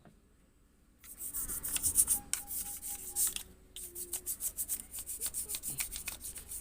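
Quick, repeated rubbing strokes on a surface, like scrubbing, starting about a second in, with a brief pause near the four-second mark.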